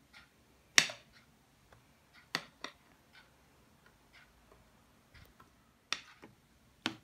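A metal spoon clicking and knocking against a mixing bowl and a plastic tub as thick whipped ice-cream mixture is scraped out. There are about five sharp clicks, irregularly spaced, and the one about a second in is the loudest.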